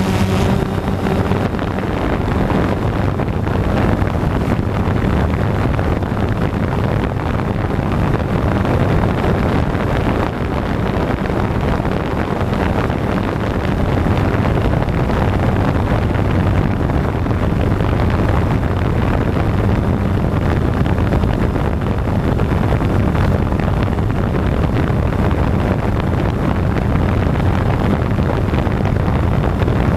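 Multirotor drone's motors and propellers running steadily, heard from the camera on board, with wind buffeting the microphone: an even rushing noise over a low hum. A higher-pitched motor whine fades out in the first second or two.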